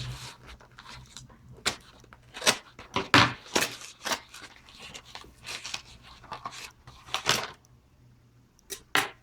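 A box and its packaging being opened and handled by hand, giving irregular sharp rustling and tearing noises. The loudest come about three seconds in and again near the end.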